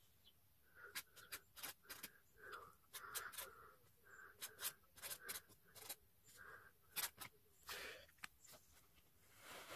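Faint felt-tip marker writing on paper: a run of short strokes, with small sharp clicks as the tip touches down and lifts between letters.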